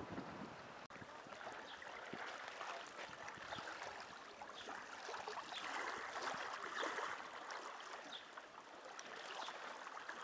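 Small waves lapping at a lake shore, a faint steady gurgle with many little splashes that grows a little louder around the middle.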